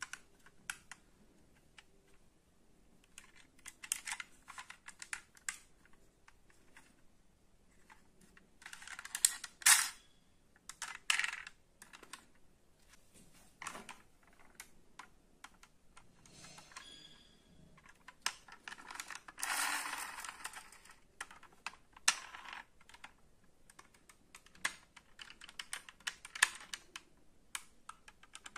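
Light clicks, taps and rattles of a plastic toy steam locomotive and a die-cast toy coach bus being handled, with a few louder scraping bursts, the longest lasting about a second and a half near the middle.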